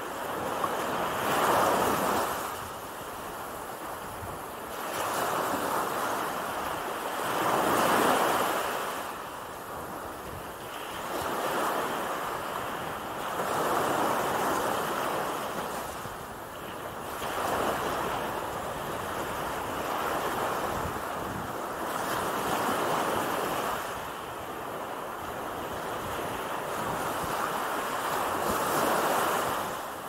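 Small Gulf of Mexico waves breaking and washing up onto a sandy shore, the surf hiss swelling and fading every few seconds as each wave runs in and drains back.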